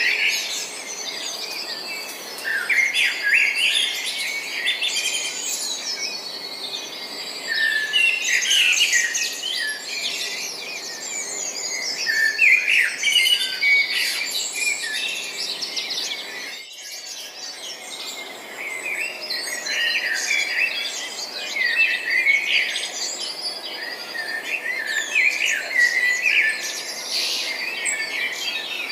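A chorus of many small birds chirping and twittering, with dense overlapping short high calls and trills and a brief lull about two-thirds of the way through.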